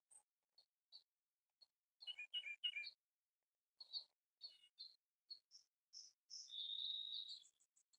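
Small birds chirping: scattered short, high chirps, a quick cluster of calls about two seconds in, and a longer trilled note near the end.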